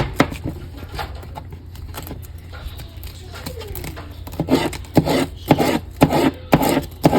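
Mini cleaver working on a wooden cutting board: scraping and rubbing at first, then a run of quick, regular chops in the second half.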